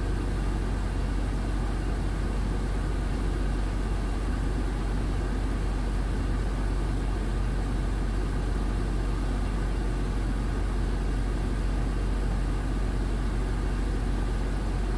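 Steady engine drone and road noise inside a truck's cab while driving.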